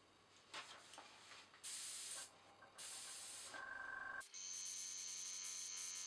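Dual-action airbrush spraying in two short hisses of about half a second each. Then, about four seconds in, the small tankless compressor that feeds it starts and runs with a steady hum and a high whine.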